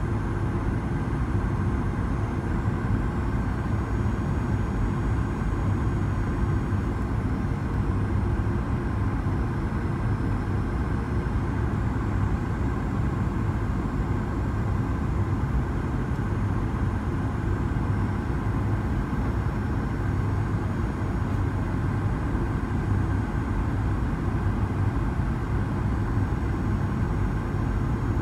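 Cabin noise of a Boeing 737-900ER on approach, heard from a window seat beside the wing: its CFM56-7B engines and the airflow make a steady, deep drone.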